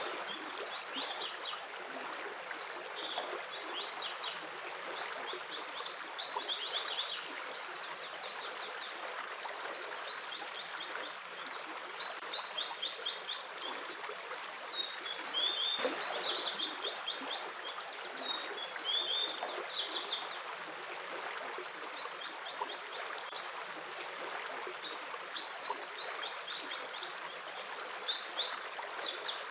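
Stream water flowing steadily, with birds chirping in repeated quick runs of high notes over it.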